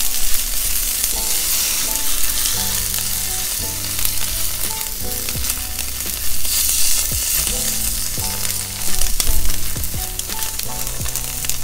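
Soy-glazed tofu cubes sizzling in hot oil in a nonstick skillet while a silicone spatula tosses them, with a few sharp knocks of the spatula against the pan. The soy sauce is browning fast on the tofu.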